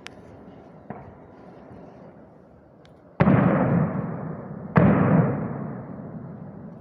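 Two gunshots about a second and a half apart, each a sudden crack followed by a long echo that fades away over more than a second. A few much fainter pops come before them.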